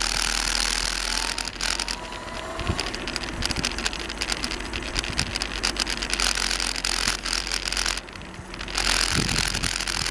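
Steady rushing and rattling noise from moving along an asphalt road with wind on the microphone. It drops away briefly about eight seconds in.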